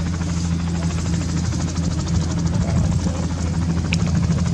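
Bell 206 JetRanger running on the ground with its rotor at speed just before liftoff: a steady turbine hum under the rapid, even beat of the two-bladed main rotor.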